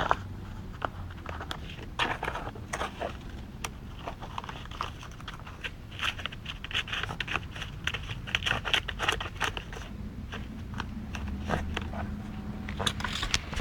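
Dog playing in sand: irregular scraping and crunching of sand, with a busier run of quick scratching strokes in the middle.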